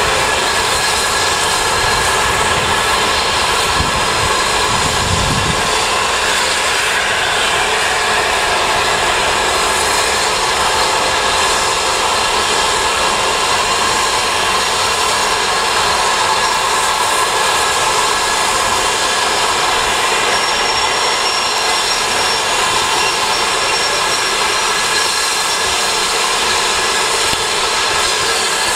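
Steam locomotive moving slowly with its train, with a loud, steady hiss of escaping steam.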